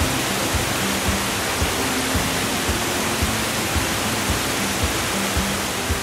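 Waterfall's steady rush of falling water, under background music with a low beat of about two thumps a second.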